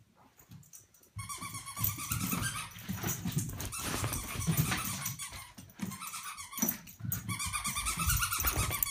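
Small dog growling as it plays with a new toy, starting about a second in, with long high-pitched squeals near the start and again near the end.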